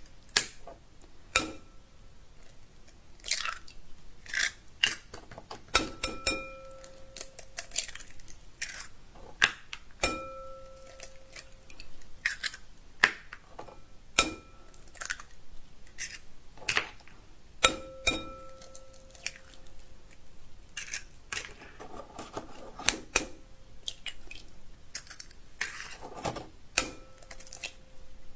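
Raw eggs being cracked on the rim of a glass mixing bowl one after another: sharp taps at irregular intervals, several leaving the glass bowl ringing briefly, with eggshells crackling as they are pulled apart.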